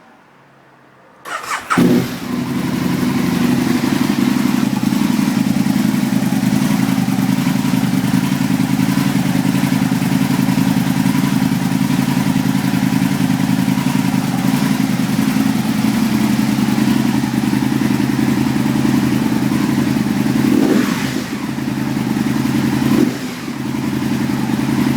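Aprilia Tuono 1000R's V-twin with an Akrapovič exhaust cranks briefly on the starter and catches at once after sitting unused for a while, then settles into a steady idle. It is revved twice briefly near the end.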